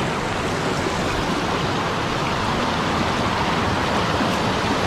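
Creek water rushing steadily over rocks close by, a continuous even hiss.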